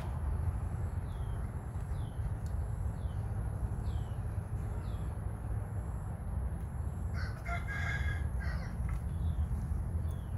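Bird calls over a steady low rumble: short falling chirps repeat about once a second in the first half, then one drawn-out call with several pitches, lasting about a second and a half, comes about seven seconds in.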